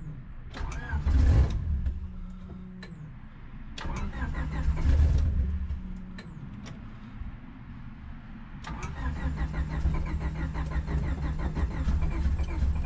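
Starter motor cranking a turbocharged Honda D16 four-cylinder in three tries, the last one running on to the end, without the engine catching and running. The owner puts it down to a fuel problem.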